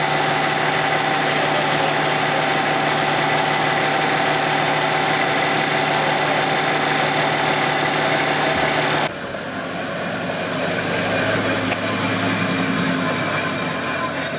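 A vehicle engine idling with a steady hum that cuts off abruptly about nine seconds in, followed by a quieter engine running with a wavering low pitch.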